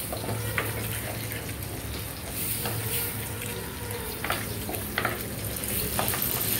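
A wooden spatula stirs and scrapes tomato pieces through masala paste frying in oil in a pot, with a steady sizzle. Short scraping knocks of the spatula against the pot come every second or so.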